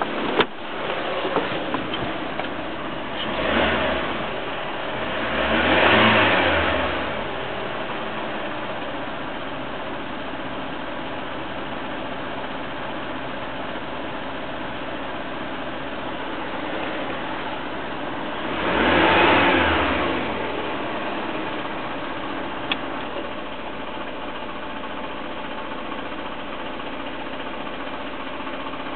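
Peugeot 307 1.6 16v four-cylinder petrol engine idling steadily, revved briefly three times: twice in the first few seconds and once more a little over halfway through. A few short clicks sound at the start and once later.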